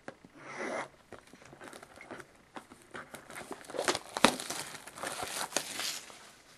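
Plastic wrapping on a sealed trading-card box crinkling and tearing as the box is opened, in irregular crackles with a few sharp snaps, busiest in the second half.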